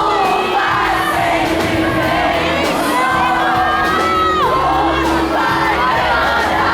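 Live pop concert: the band's music playing loudly while a large crowd of fans sings along and screams.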